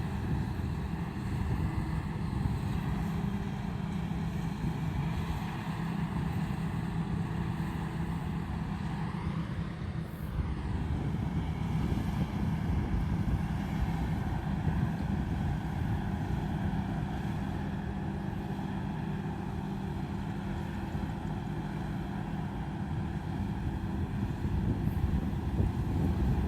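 Combine harvester running steadily at working speed: a continuous engine drone with a low rumble and machinery hum.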